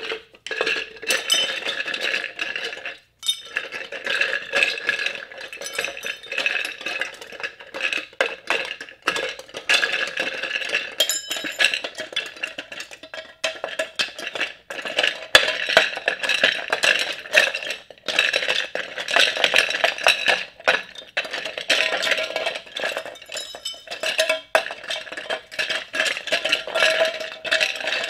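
Dense, irregular clattering and clinking of hard plastic objects being knocked, rattled and scraped together, with a brief break about three seconds in. Steady ringing tones hang underneath.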